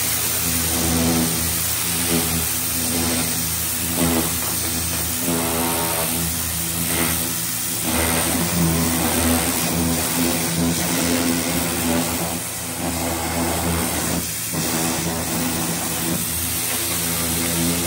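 Pressure washer running: a steady motor drone under the hiss of the high-pressure water jet blasting stripped paint and rust residue off bare steel body panels, with brief dips a few times.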